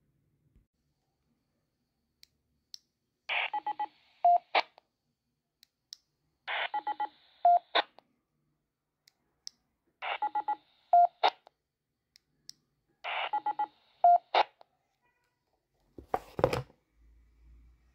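Baofeng handheld transceiver sounding four identical short signalling bursts, about every three and a half seconds. Each is a quick run of tones ending in a single loud beep and a click. A handling knock comes near the end.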